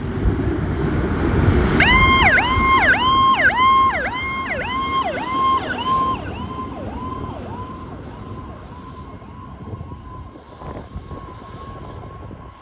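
A fire engine's low engine rumble as it pulls out, then about two seconds in its electronic siren starts in a fast rising-and-falling yelp, a little under two sweeps a second. The siren fades as the truck drives away.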